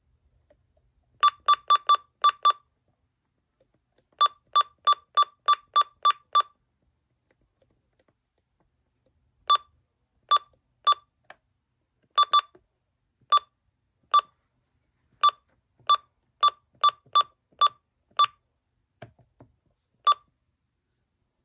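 Keypad confirmation beeps from a Uniden weather alert radio, one short high beep per button press as its clock is stepped through the time-setting menu. A quick run of about five beeps comes first, then about eight, then a slower string of single beeps.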